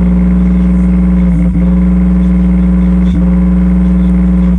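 Subwoofer playing a loud, steady low bass tone, buzzing with many overtones, with two very brief dips about a second and a half and three seconds in.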